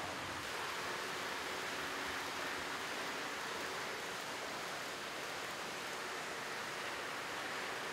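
Steady, even hiss-like noise with no speech or music, unchanging throughout.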